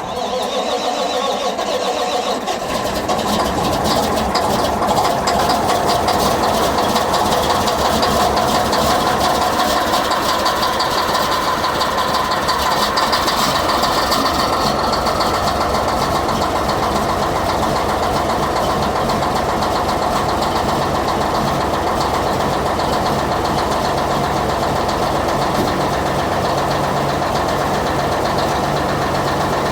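Diesel engine of a 1987 Mack dump truck on a cold start, coming up over the first few seconds and then running steadily at idle.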